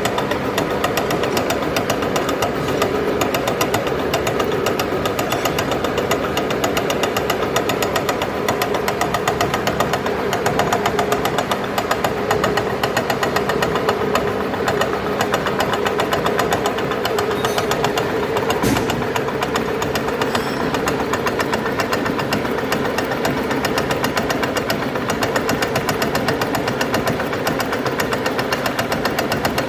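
Engine driving a rotary spading cultivator, running steadily under working load with a fast, even knocking beat. A single sharp knock sounds about two-thirds of the way through.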